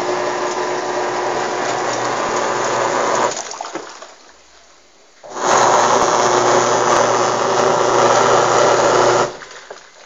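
Washing machine motor turning the wash for about four seconds, stopping for about two, then starting again for another four seconds in the opposite direction, a little louder: the controller's cycle of four seconds one way, a rest, four seconds the other way.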